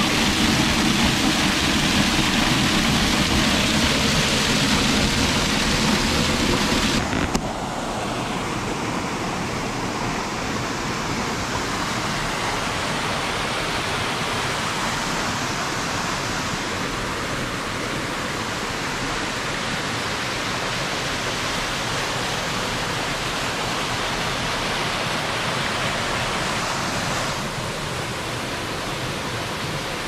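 Rushing water: a small waterfall pouring and splashing close by, loud for about the first seven seconds, then after an abrupt cut a quieter, steady rush of a rocky stream.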